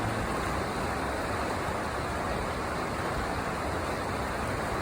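Steady rush of the Colorado River's moving water, an even noise without rise or fall.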